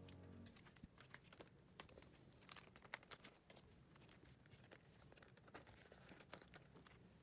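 Faint crinkling and soft clicking of clear plastic binder sleeves as photocards are handled and slid into the pockets.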